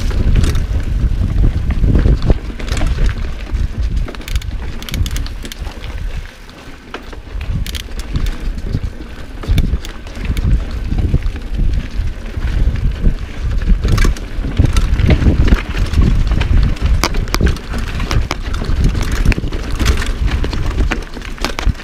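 Mountain bike riding fast down dirt singletrack, heard from a camera on the bike: wind buffeting the microphone, with frequent clacks and rattles from the bike over bumps. It eases briefly about a third of the way in.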